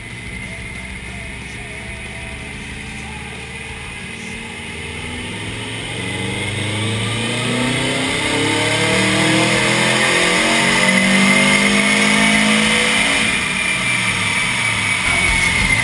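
2002 Subaru Impreza WRX's turbocharged flat-four making a dyno pull through a catless turboback exhaust: the engine note climbs steadily in pitch and loudness for several seconds, with a high whine rising alongside it, then eases off near the end as the throttle closes.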